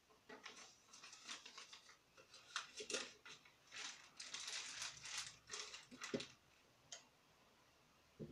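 Rustling of a paper instruction sheet and a small plastic parts bag as they are handled, in irregular bursts, followed by a single light click of the glass cover going onto the brass lamp base near the end.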